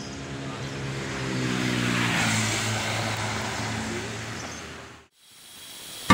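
A motor vehicle's engine hum drawing near and passing, loudest about two seconds in, then fading; the sound drops away to silence about five seconds in.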